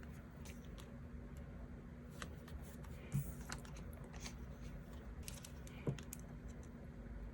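Quiet, irregular small clicks and ticks of stationery being handled on a desk while a diary page is decorated, with two soft thumps about three and six seconds in.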